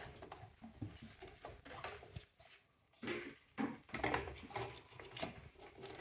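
Faint clicks and rustles of hands handling small parts of a welding machine setup. The sound drops out entirely for about a second just after two seconds in, then the handling noise picks up again.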